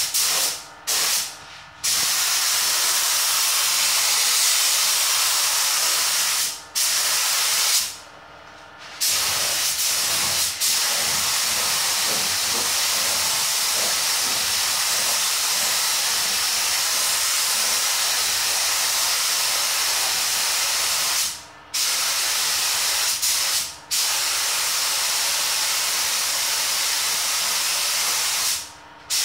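Iwata Airgunza spray gun with a 1.3 mm nozzle hissing as compressed air atomises clear coat onto a car body. The hiss runs in long steady passes, broken several times by short gaps where the trigger is let go, the longest about eight seconds in.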